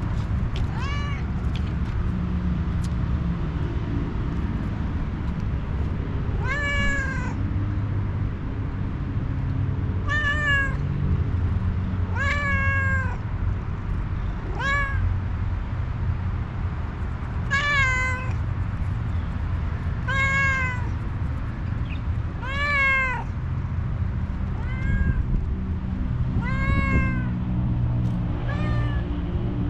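Stray tuxedo cat meowing over and over, about a dozen meows a few seconds apart, each rising then falling in pitch: a hungry cat asking for food. A steady low rumble runs underneath.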